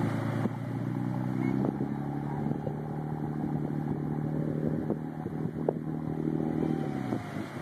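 Motorboat engine running steadily under load while towing a boat stuck on a sandbar, with a few knocks. Its note drops away about seven seconds in.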